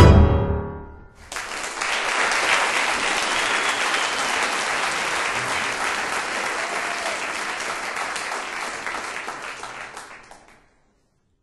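A piano run falls to a last low note and fades, then an audience applauds, starting about a second in and dying away near the end.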